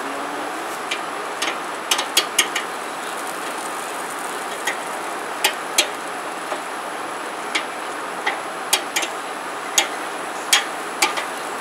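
Metal tongs clicking against the grate of a kettle grill as boudin burgers are turned: sharp, irregular clicks, some in quick clusters, over a steady sizzle.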